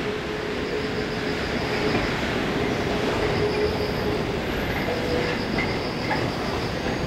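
Toyama Chiho Railway 10020-series electric train, built in 1964, pulling out slowly over curved track and points. It makes a steady running rumble with light wheel squeal on the curve.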